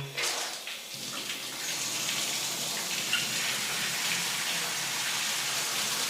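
Bathtub filling: water running steadily from the tap into the tub.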